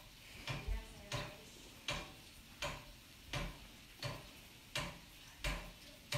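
Metal spoon knocking against a frying pan about every 0.7 s as a breaded egg is basted with its frying oil, over a faint sizzle of hot oil.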